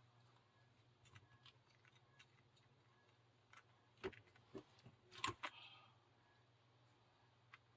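Faint, scattered clicks and taps of small craft items being handled on a tabletop, with a quick run of louder clicks about four to five seconds in.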